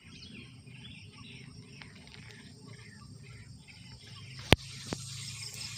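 Small birds chirping over a quiet rural background. A single sharp, loud click comes about four and a half seconds in, with a fainter click half a second later.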